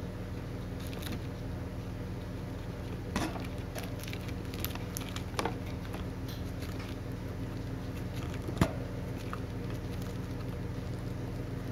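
Hamster gnawing kernels off a corn cob: scattered small crunches and clicks, the sharpest about eight and a half seconds in, over a steady low hum.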